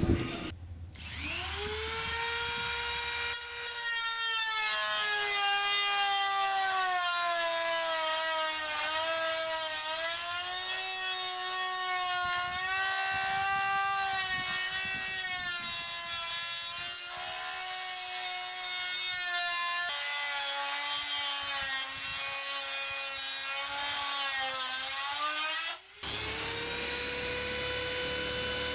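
Small electric rotary tool with a metal cutoff wheel cutting thin aluminium aircraft skin. The motor whine spins up about a second in, then drops and wavers in pitch as the wheel bites into the metal. Near the end the sound breaks off briefly and the whine climbs back to its higher free-running pitch as the wheel runs unloaded.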